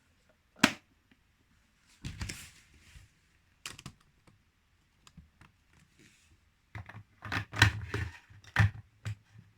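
Plastic clicks and knocks from handling an electric kettle: a few single clicks, then a quicker run of knocks near the end.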